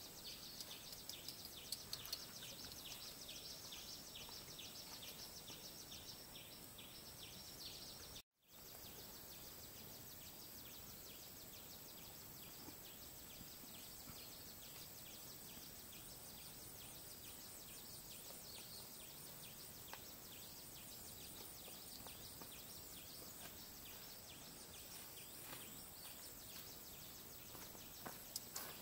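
Faint forest background with a fast, even, high-pitched insect chirring for about the first eight seconds; the sound cuts out completely for a moment, then only a steady faint hiss of the surroundings remains.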